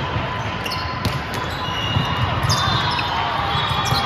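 Volleyballs bouncing and thudding on a gym floor over the steady background noise of a busy gymnasium, with short high squeaks here and there.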